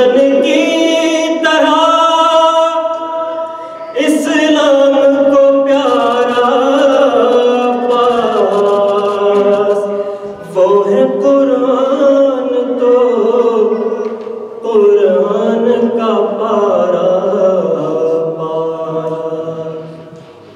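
A man's solo voice, unaccompanied, chanting an Urdu devotional poem in long melodic phrases that bend up and down. Each phrase is held for several seconds, with short breaths between them, and the last fades out near the end.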